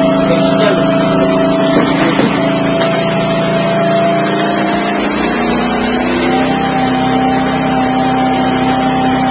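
Hydraulic drive head turning a helical pile lead section down into the ground, powered by a hydraulic power unit. It runs steadily with a whine, and its pitch steps up slightly about six seconds in.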